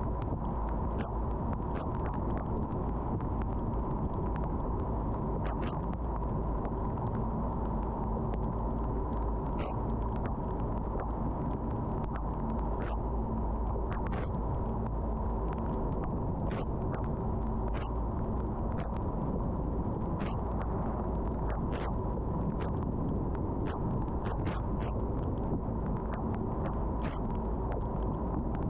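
Car driving in the rain: a steady low rumble of road and engine noise, with scattered light ticks of raindrops striking the car at irregular intervals.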